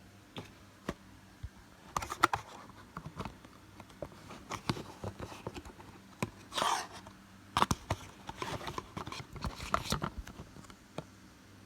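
Trading cards and packaging being handled on a table: scattered light taps and clicks, with a short rustle a little before the middle and another cluster of taps and rustling near the end.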